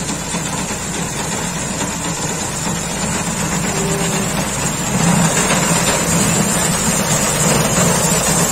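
Tractor engine running steadily while powering a front-mounted reaper through standing wheat, growing louder about halfway through as the machine comes closer.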